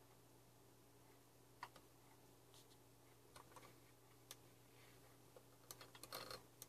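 Near silence with scattered faint clicks of a computer mouse and keyboard, a few single ones and then a quick run of clicks near the end.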